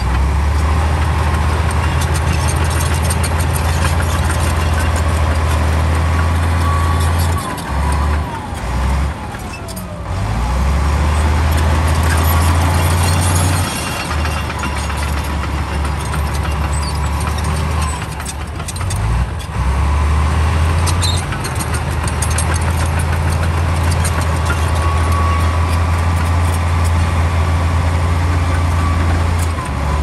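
Komatsu D68E crawler bulldozer's diesel engine working under load while pushing rock and dirt. Its steady low drone dips and picks up again several times as the load changes.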